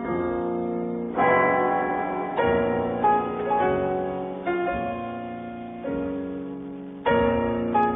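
Slow background piano music: chords and single notes struck about every second or so, each left to fade.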